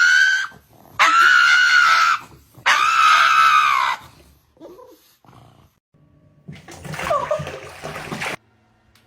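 An animal calling out in long, high-pitched cries: one rising cry at the start, then two long cries that rise and fall, each just over a second. A shorter, noisier stretch of sound near the end cuts off abruptly.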